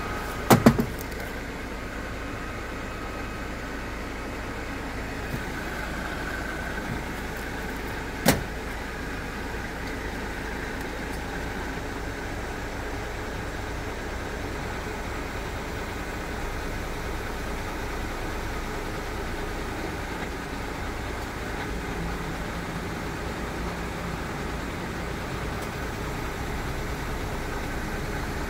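Mitsubishi crane truck's diesel engine idling steadily, with a quick cluster of sharp knocks about half a second in and a single sharp knock around eight seconds in.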